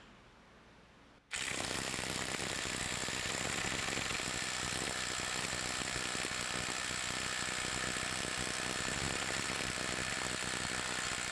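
DeWalt DCF850 impact driver, converted to an impact wrench with an anvil swap, hammering in reverse against a torque-test fixture. Its rapid, steady hammering starts abruptly about a second in, runs for about ten seconds and cuts off near the end.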